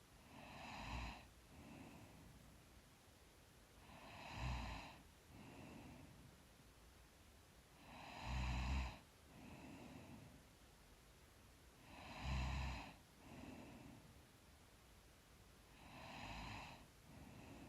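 A sleeping woman's slow, faint breathing with light snoring, one breath about every four seconds. Each breath has a louder snoring part followed by a softer breath, and the snore is strongest on the middle two breaths.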